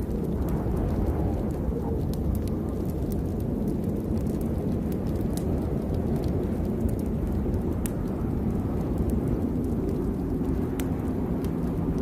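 Steady rainstorm ambience: a dense, unbroken low rumble with scattered sharp ticks of drops on top.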